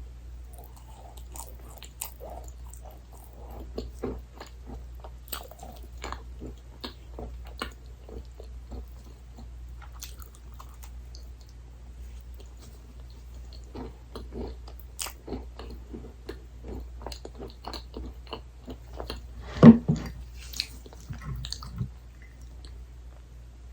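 Close-miked chewing and biting of soft desserts such as cake and macarons, a continuous run of short, moist mouth clicks. One much louder sound comes about twenty seconds in, over a steady low hum.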